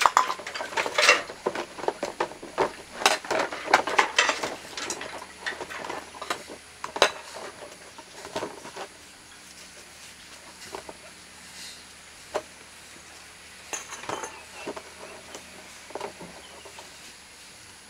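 Irregular clinking and scraping of hard objects, dense for about the first nine seconds, then only occasional single clinks.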